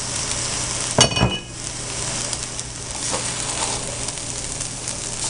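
Fried rice sizzling in a hot wok while a wooden spatula stirs it through, with one sharp ringing clink about a second in.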